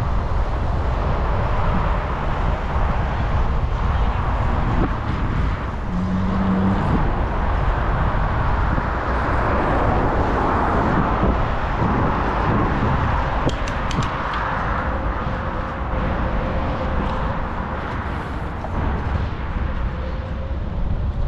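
Wind buffeting the microphone of a camera riding on a moving bicycle, over the steady rolling noise of its tyre on an asphalt path. A short low tone sounds about six seconds in, and a few sharp clicks come a little past the middle.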